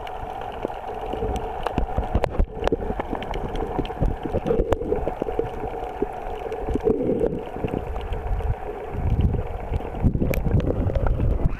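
Muffled underwater noise picked up through a camera housing: water sloshing and gurgling over a steady hum, with scattered small clicks. The low rumbling grows stronger about nine seconds in.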